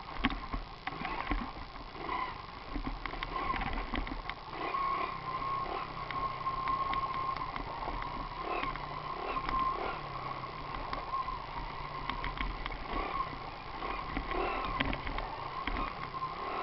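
Mini moto's small engine running steadily with a slightly wavering pitch, with scattered clicks and knocks over it.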